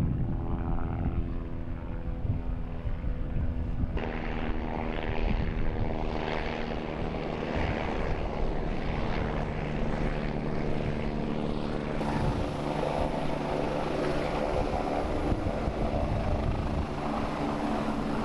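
Aircraft engine running steadily, a droning hum of several even tones with a rushing noise over it. It turns abruptly louder about four seconds in and shifts again about twelve seconds in.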